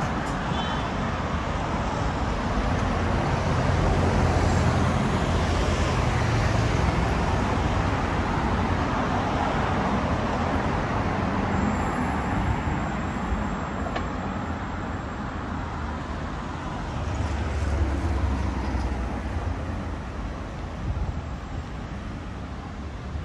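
City street traffic: a steady wash of tyre and engine noise, with a low engine rumble swelling as vehicles pass, about four seconds in and again about two-thirds of the way through.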